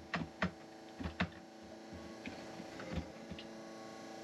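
A few sharp clicks and knocks of a push-button cabinet lock and its wooden door or drawer being worked, four close together in the first second and a half and one faint click near 3 s.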